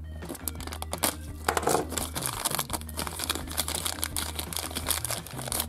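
Thin plastic toy packaging being crinkled and torn open by hand, a dense run of crackling rustles that is loudest about a second and a half in. Soft background music plays underneath.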